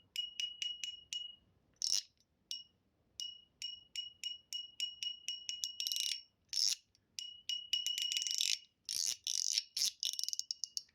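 Metal mechanical fidget slider with a spring-and-ball mechanism being slid back and forth: quick runs of sharp clicks, about four or five a second, each ringing with a high metallic ping, broken by a few louder clacks.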